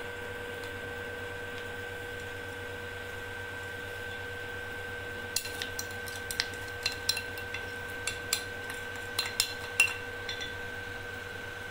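Glass dishes and a spoon clinking as spices are tipped from a glass dish into a glass mixing bowl: a run of sharp, irregular clinks starting about halfway through and stopping shortly before the end. A steady hum runs underneath.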